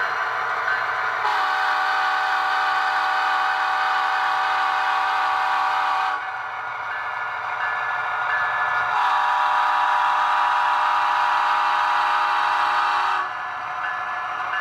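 Sound decoder (SoundTraxx Tsunami 2) in an HO-scale Union Pacific SD70ACe model playing diesel engine sound through its small speaker, with two long horn blasts of several tones, the first about five seconds long, the second about four, starting about a second in and again about nine seconds in.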